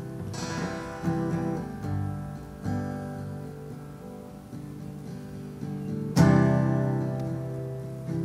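Acoustic guitar strummed: a few chords in the first three seconds, then a louder strum about six seconds in that rings out and slowly fades.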